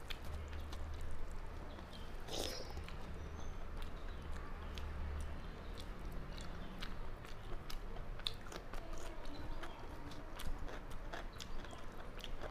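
Close-miked chewing and mouth sounds of a person eating rice and soft cooked vegetables by hand, with many small, sharp, wet clicks scattered through.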